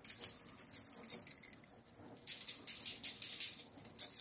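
A seasoning shaker shaken over pork steaks in several short runs of quick shakes, the granules pattering onto the meat and the aluminium foil beneath.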